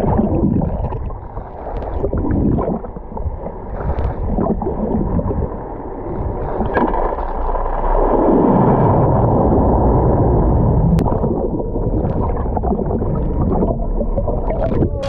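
Muffled rushing and gurgling of water heard with the camera underwater, with a low rumble. It swells louder about halfway through, then eases a little.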